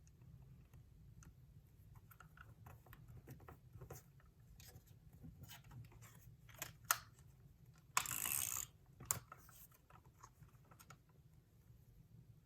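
Paper collage pieces and a crafter's adhesive tape runner being handled close up: soft crinkles, taps and small clicks, with a sharp click about 7 s in and one louder rasping burst, under a second long, about 8 s in.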